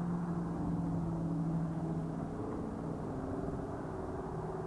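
Steady hum of passing road traffic, vehicle engines and tyres. A low engine drone fades a little past halfway, and another, higher-pitched one builds near the end.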